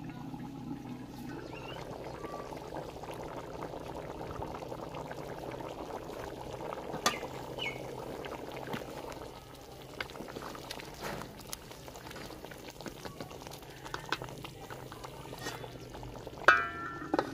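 Rice and water bubbling at the boil in a large aluminium pot, easing after about ten seconds. A few sharp knocks come through it, the loudest and ringing one near the end.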